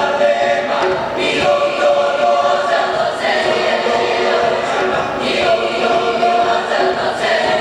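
A choir singing, with held sustained notes that change every second or two.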